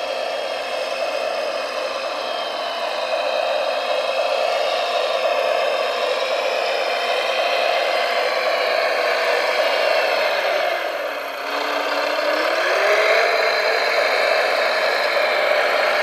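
Radio-controlled Volvo wheel loader's drive running with a steady whine while it tows a truck over a gravel heap. The pitch sags about eleven seconds in, then climbs again.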